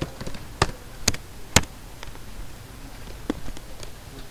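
Four sharp, separate clicks from a computer keyboard and mouse during code editing. Three come about half a second apart in the first two seconds, and a fainter one follows later.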